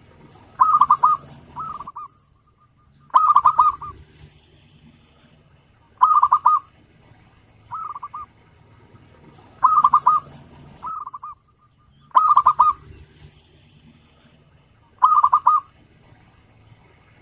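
Zebra dove (perkutut) cooing: a short, quick run of ringing notes repeated about every three seconds, several phrases followed by a softer, shorter one.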